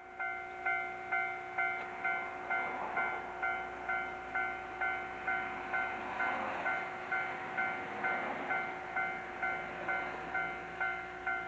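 Railway level-crossing warning bell ringing in an even, steady rhythm of about two strokes a second, signalling an approaching train.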